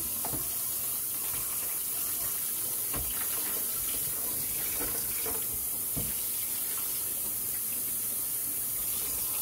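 Kitchen tap running steadily into a stainless steel sink as plastic litter box parts are rinsed under it, with a couple of light knocks from the parts being handled, about three and six seconds in.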